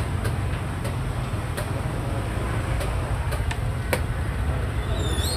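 Steady low rumble with scattered light clicks, and a sharper click about four seconds in as a plastic xiangqi piece is set down on a wooden board. A brief high chirp near the end.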